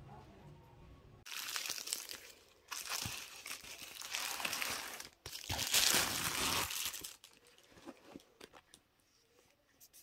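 A plastic bubble mailer is handled and torn open, crinkling and tearing in about four loud bursts. Near the end come a few light taps and rustles as a paperback is set down on a quilted bedspread.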